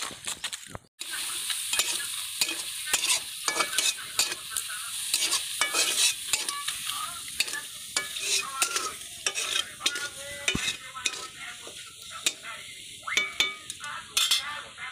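Shellfish (shamuka) meat frying and sizzling in a steel kadai, stirred with a metal spoon that clinks and scrapes against the pan many times. The water given off by the shellfish is being cooked down.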